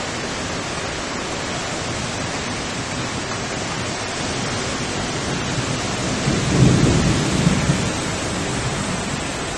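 Strong storm wind making a steady rushing noise, with a low rumble of thunder rising about six seconds in and fading over a couple of seconds.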